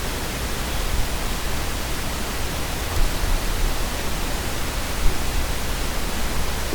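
Steady hiss of background noise on the recording, spread evenly across all pitches, with no other distinct sound.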